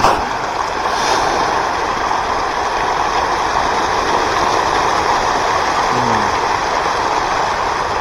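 Steady rushing water, with a short click at the start and a brief low falling tone about six seconds in.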